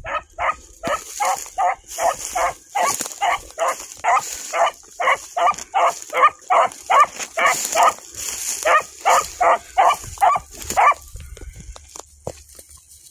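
A hunting hound barking on a trail in a fast run of short barks, two to three a second, which stops about eleven seconds in.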